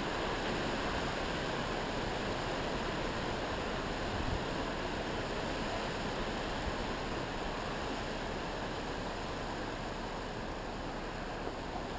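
Storm wind rushing steadily, a constant even roar of high winds.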